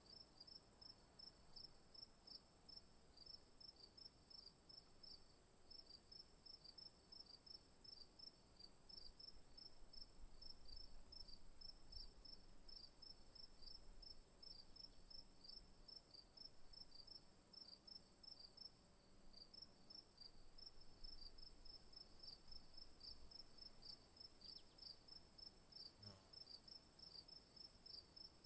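Crickets chirping faintly: one steady, very high trill with quick, evenly repeated chirps beneath it, going on without a break.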